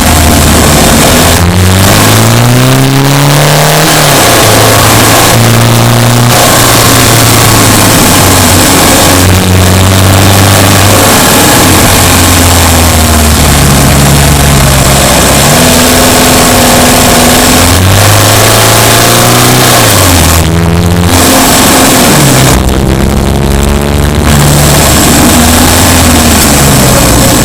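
Subaru Impreza Sport's flat-four engine, heard close up from the engine bay while driving, revving up and easing off again and again, its pitch climbing and dropping back several times as it is worked through the gears.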